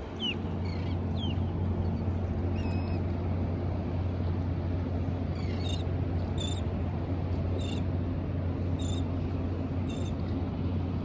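Birds calling: a few descending chirps in the first second or so, then short high calls repeating about once a second from about halfway in, over a steady low hum.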